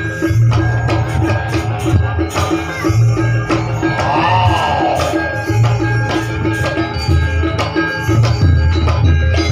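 Live gamelan accompaniment for a janger dance-drama. A quick, even beat of struck percussion notes plays over deep low pulses that swell and drop in stretches of about a second, with a wavering higher melodic line rising and falling near the middle.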